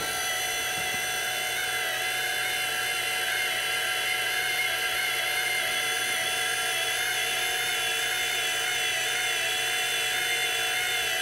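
Die grinder on a welding robot's grinding arm spinning free, a steady high-pitched whine.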